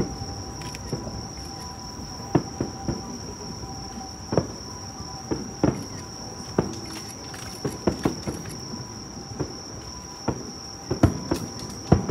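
Distant aerial fireworks bursting: sharp bangs at irregular intervals, some in quick clusters, the loudest near the end. Under them runs a steady high-pitched chorus of night insects.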